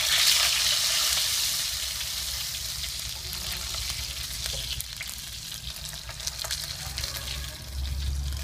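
Meat sizzling in oil in a frying pan, loudest in the first couple of seconds and then settling to a steadier hiss, with a few light clicks of metal spatulas against the pan.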